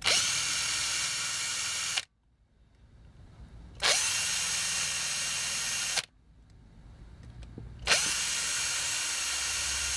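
Power drill running in three bursts of about two seconds each, each spinning up quickly and cutting off abruptly, as the bit drills out a rivet.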